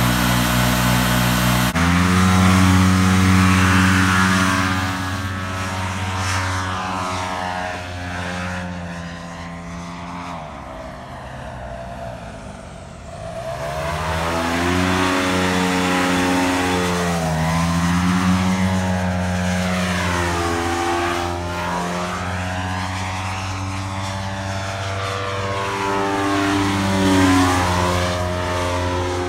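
Paramotor's backpack engine and propeller running steadily at high power, growing stronger about two seconds in. It fades for a few seconds in the middle, then comes back louder, its tone sweeping as the paramotor flies past overhead.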